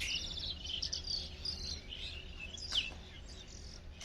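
Small birds chirping and trilling, with a quick falling whistle a little before three seconds in.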